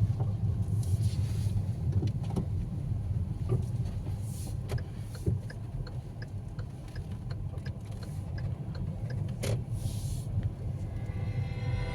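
Steady low rumble of a motor vehicle on the road, with scattered light clicks and knocks.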